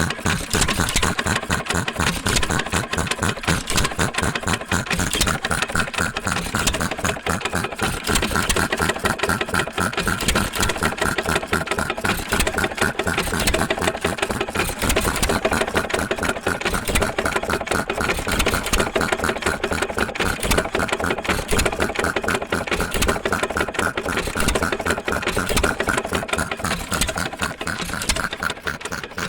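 1916 Associated 2-1/4 HP hit-and-miss engine and air compressor unit running, a steady rapid mechanical clatter of evenly repeating strokes, about five or six a second.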